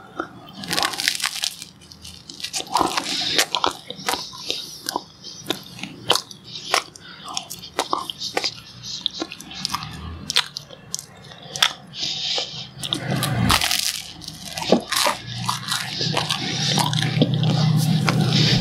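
Close-up biting and chewing of toasted brown bread: a run of short, irregular crisp crunches, several a second.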